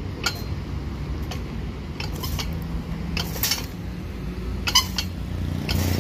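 Hand-lever bench shear (cizalla) cutting galvanized steel sheet in short bites, about six sharp metallic snips roughly a second apart, the loudest near the end. A low steady rumble runs underneath.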